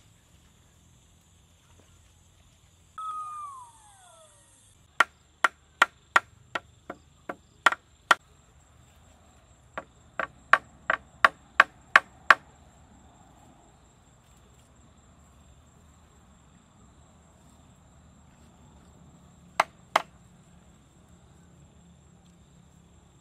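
Sharp chopping strikes of a machete into wood: two quick runs of eight or nine blows at about three a second, then two more blows near the end. A short falling cry sounds about three seconds in, before the chopping.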